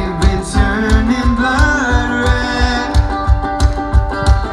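Live band playing amplified through a PA: a singer over strummed guitars and upright bass, with a steady, fast kick-drum beat.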